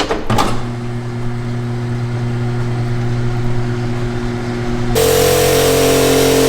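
A machine's motor starts with a knock and runs with a steady hum. About five seconds in, a louder running sound with a hiss abruptly takes over.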